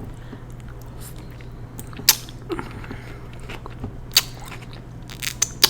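Chopsticks clicking against a dish in a few short, sharp taps while feeling for noodles, over a faint steady low hum.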